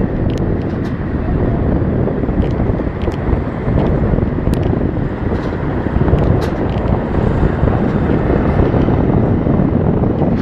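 Wind buffeting a phone's microphone, a loud, steady, gusting rush, with a few faint clicks.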